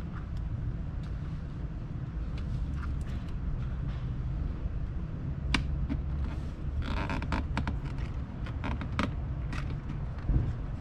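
Plastic clicks, taps and creaks as a phone mount's clips are worked into the Nissan 370Z's dashboard trim, over a steady low rumble. A short burst of scraping comes a little past the middle, and a low thump near the end.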